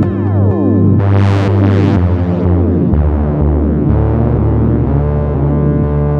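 Ambient electronic music from a Korg Electribe 2 groovebox: sustained synth bass notes changing about once a second under many falling pitch sweeps, with two short hissing noise swells about a second in.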